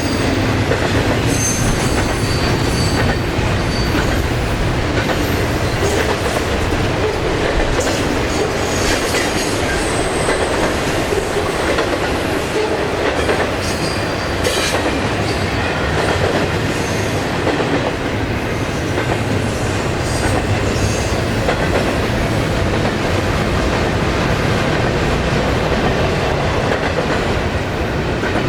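Train rolling past with a steady loud rumble and clatter of wheels on the rails. Short high wheel squeals come now and then, most in the first few seconds and again near the middle.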